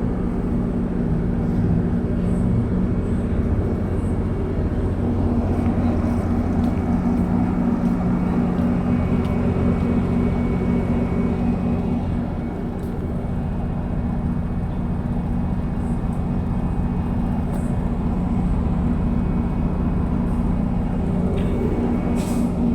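Metrolink diesel commuter train running: a steady low drone over continuous rumbling ride noise, with faint scattered clicks.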